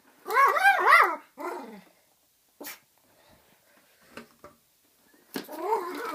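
Small dog yapping in a quick run of high, rising-and-falling yelps, then a pause with a click, and more yelping near the end. The dog is reacting to a vacuum cleaner's cord being wound in.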